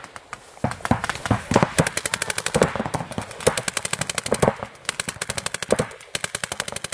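Paintball markers firing fast strings of shots, many a second, as sharp pops broken by brief pauses between strings.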